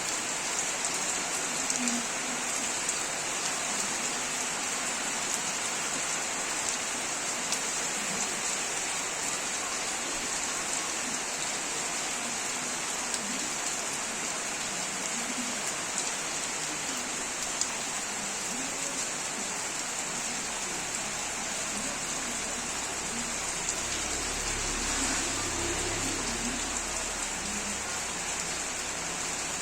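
Steady rain falling, an even hiss with scattered drop ticks; a low rumble joins it about two-thirds of the way through.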